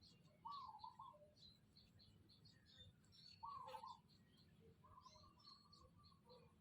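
Puppy whimpering softly: three short, wavering whines, the last one longer and flatter, with faint high chirps in the background.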